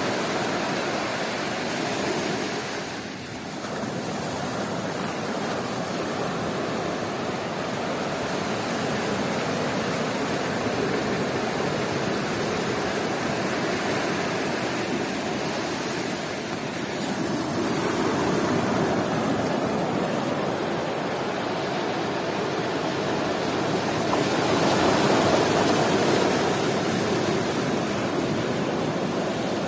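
Sea waves washing onto the beach in a continuous surf noise, swelling louder twice, once past the middle and again near the end, with a brief lull about three seconds in.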